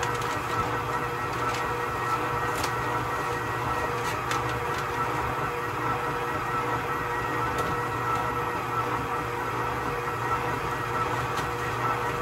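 Electric mixer motor running steadily, kneading bread dough, a constant hum with a steady whine and a few faint clicks.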